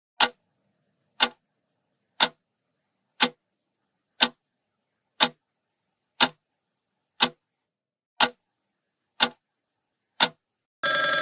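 Countdown timer sound effect: a clock ticking once a second, eleven ticks in a row. Near the end a loud bell-like ring starts, signalling that time is up.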